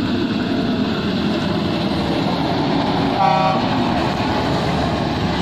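Loaded dump truck driving along a dirt haul road, a steady engine and tyre rumble. A vehicle horn gives one short toot about three seconds in.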